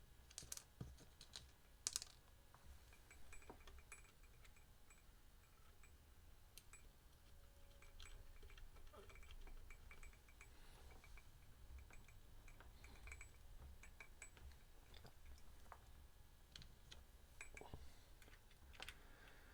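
Faint, scattered small clicks and metallic ticks of guitar hardware being handled while a nut is fitted onto a potentiometer shaft, the sharpest clicks about half a second and two seconds in, over a faint low hum.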